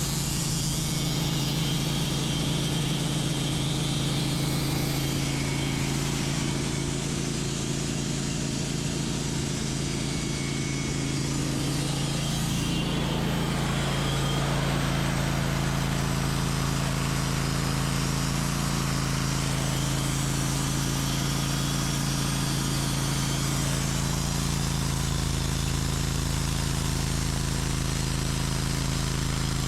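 A sawmill's engine running steadily at an even level, with a low, constant hum.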